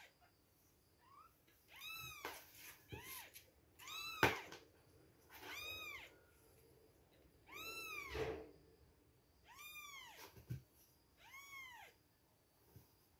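Two-week-old kittens mewing, about eight short, high-pitched cries one to two seconds apart, each rising and then falling in pitch. A sharp knock sounds about four seconds in.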